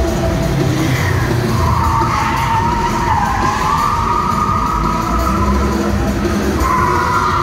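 Holden drift car's tyres squealing in long, wavering screeches as it slides. The squeal starts about a second and a half in, fades after about five seconds and comes back near the end.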